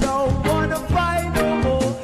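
Background music with a steady drum beat and a melody.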